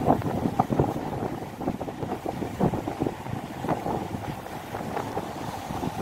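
Surf washing and breaking over a rocky shore, with wind buffeting the microphone in irregular gusts.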